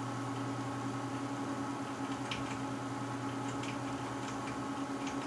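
Steady electrical hum of room tone, with a few faint, irregular clicks.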